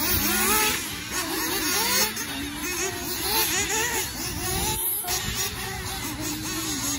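Several nitro-powered radio-controlled off-road cars racing, their small high-revving engines overlapping and constantly rising and falling in pitch as they accelerate and back off through the corners.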